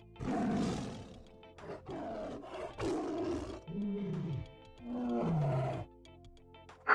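A series of short animal calls, five in all, the fourth and fifth low and rising then falling in pitch, over faint background music.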